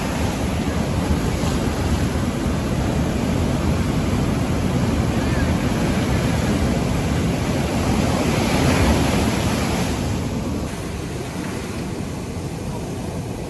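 Ocean surf breaking and washing in around rocks at the shoreline, a steady rush of water. About ten and a half seconds in, it drops a little quieter.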